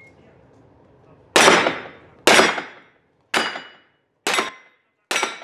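Five pistol shots about a second apart, each sharp and loud with a ringing tail in the enclosed indoor range.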